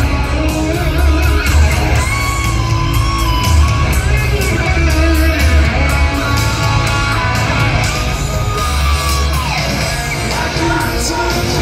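Live hard-rock band playing loudly, heard from the crowd: electric guitar with bending held notes over heavy bass and drums, with voices singing and yelling on top.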